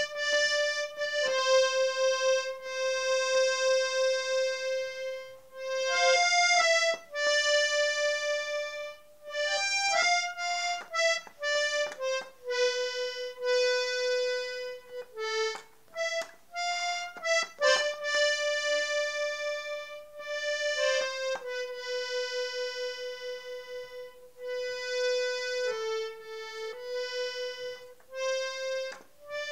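Piano accordion playing a slow solo melody: single notes held for several seconds each, with a few quicker runs, and no low bass notes under the tune.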